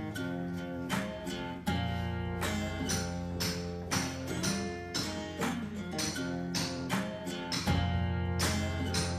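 Background music: acoustic guitar strummed in a steady rhythm of about two strokes a second, with low bass notes coming in about two seconds in.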